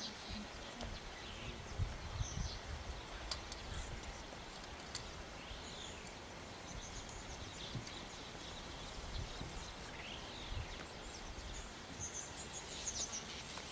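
Quiet bush ambience: scattered faint bird chirps and a couple of short rising-and-falling calls over a low, steady rumble.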